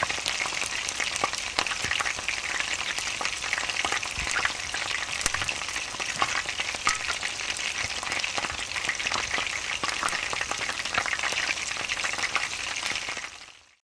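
Oil sizzling steadily with many small crackling pops: food deep-frying. It fades out near the end.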